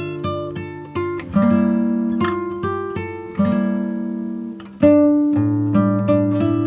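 Background instrumental music of plucked notes that ring and fade, with the chord changing every second or two.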